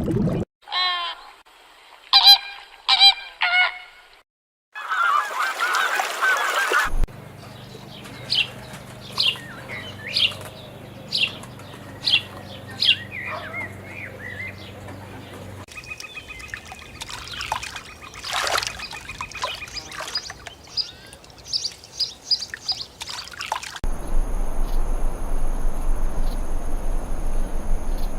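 Birds calling across a series of separate clips: three loud calls about two seconds in, then a long run of short, high, repeated calls.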